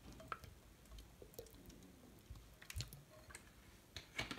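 Quiet, scattered clicks and faint handling noise as sunflower oil is poured from a bottle into a non-stick frying pan.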